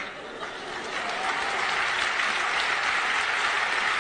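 Audience applauding, swelling about a second in and then holding steady.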